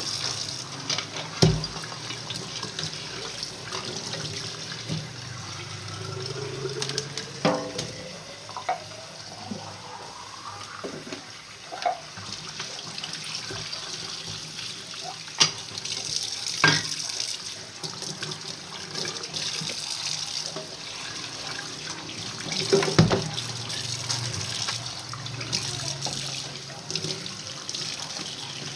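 Tap water running into a sink as dishes are washed by hand, with several sharp clinks and knocks of dishes and utensils against each other.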